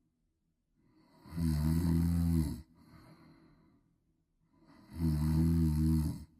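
A person snoring loudly: two long, rattling snores about three and a half seconds apart, each followed by a softer breath.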